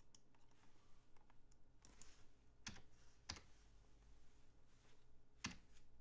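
Faint, scattered keystrokes on a computer keyboard and mouse clicks, three of them sharper than the rest, about two and a half seconds in, a little later, and near the end.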